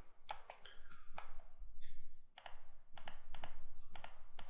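Sharp clicks of a computer mouse and keyboard, singly and in quick pairs, about a dozen in all, made while selecting and welding vertices in 3D modelling software.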